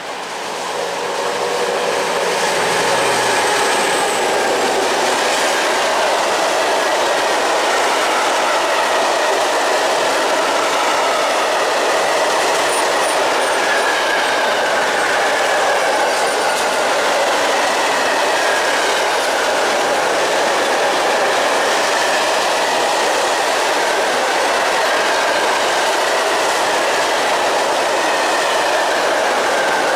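Diesel-hauled freight train of open coal wagons passing close by: a low locomotive engine hum in the first few seconds, then a steady rumble and clatter of the wagons' wheels on the rails.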